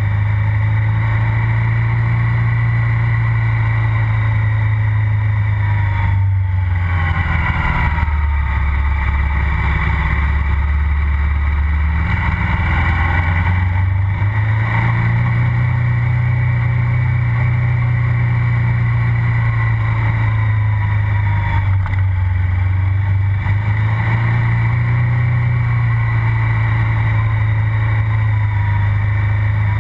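KTM 990 SMR's V-twin engine running under way, heard close at its silencer. The engine note falls about a quarter of the way in as the bike eases off, stays low for a few seconds, then climbs back up and holds steady.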